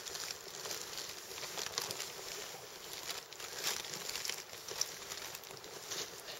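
Plastic tarp shelter crinkling and rustling in irregular crackles as it moves.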